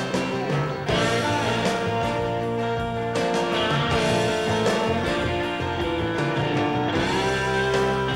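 Instrumental band music led by guitar, with an electric guitar picking a melodic line over the steady accompaniment.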